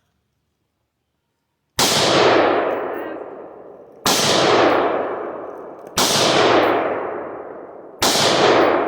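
Four loud, sharp strikes about two seconds apart, each with a long ringing decay, after a silent start.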